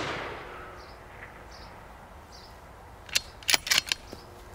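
The report of a moderated 6.5 Creedmoor rifle shot dying away. About three seconds in comes a quick run of sharp metallic clicks as the bolt-action Accuracy International AT-X's bolt is lifted, drawn back to eject the case and pushed forward to chamber the next round.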